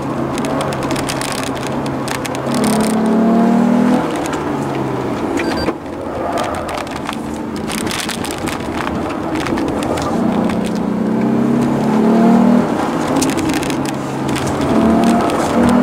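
Lexus GS sedan's engine heard from inside the cabin, revving up and easing off repeatedly as the car accelerates hard and lifts, with a sudden lift about six seconds in. Road and tyre noise runs underneath.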